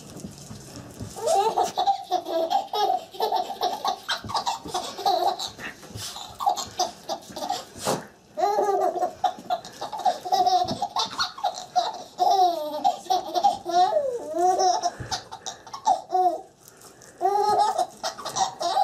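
Baby laughing in long runs of short, high-pitched bursts of belly laughter, starting about a second in, with a brief pause about eight seconds in and another near the end. A few sharp clicks sound between the laughs.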